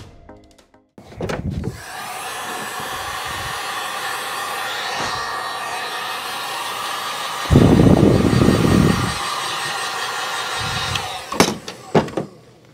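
Electric heat gun running, a steady fan whir and rush of hot air, with a louder low rush of air for a second or two about eight seconds in. It stops near the end, followed by a few knocks.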